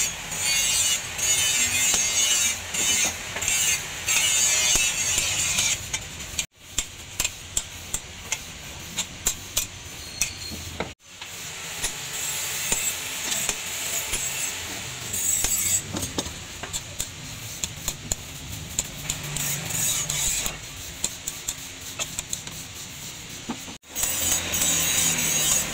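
Hand hammer striking hot leaf-spring steel on an anvil, repeated metal blows as the cleaver blade is forged.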